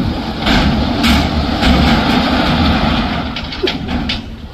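Loud, steady rumble of a heavy truck working, easing off near the end.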